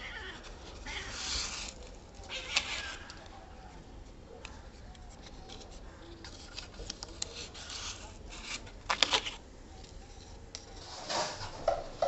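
A folded sheet of thick paper scraping and rustling along an aluminium sliding-door track as it scoops out packed dust. It goes in short, irregular strokes with a few sharp clicks, busiest about two seconds in and again around eight to nine seconds.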